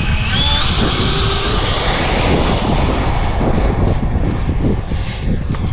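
Electric ducted fan of a Freewing F-16 90mm 8S RC jet spooling up to takeoff power: a whine that rises in pitch for about three seconds, then holds steady. Wind buffets the microphone throughout.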